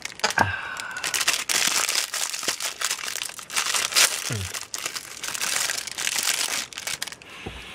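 Crinkling and rustling of a clear plastic snack-cake wrapper being torn open and peeled off a pecan spinwheel by hand, irregular and continuous.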